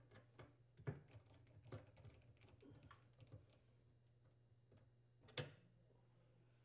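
Faint, quick clicks and ticks of a Phillips screwdriver backing out a dishwasher's mounting bracket screws, with one sharper tap about five seconds in.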